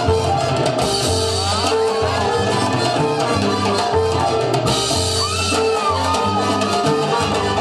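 Salsa music playing for the dance, with a repeating bass line under drums and percussion.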